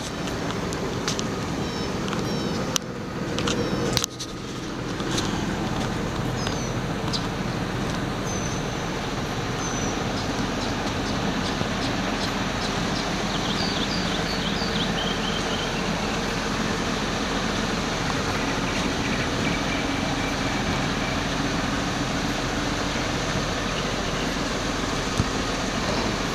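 Caterpillar 535D grapple skidder's diesel engine idling steadily, with a few short high chirps over it for a stretch in the middle.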